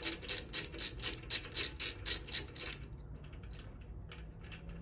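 Ratchet wrench clicking quickly and evenly, about five clicks a second, as a handlebar clamp bolt is backed out. It stops about three seconds in, followed by a few faint clicks.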